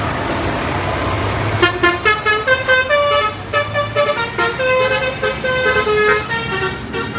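Bus telolet horn, a multi-note musical air horn, playing a quick tune of short stepped notes, starting about a second and a half in over the running engine.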